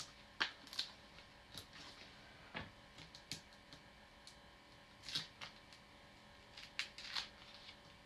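Faint paper-handling sounds: cardstock layers being moved and set down on a desk, with a dozen or so soft, irregular clicks and taps.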